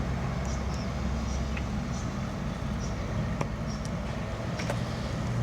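Steady low hum of a vehicle engine running, with short high bird chirps scattered over it.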